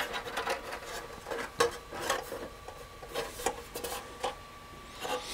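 Sheet-aluminium shield cover being handled and seated over a multimeter's circuit board: scattered light clicks and taps of metal with soft rubbing, about half a dozen sharp knocks in all.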